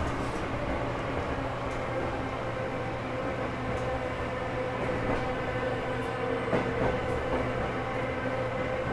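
Tokyo Metro subway train heard from inside the car while running: a steady rumble with an even hum and a few light clicks.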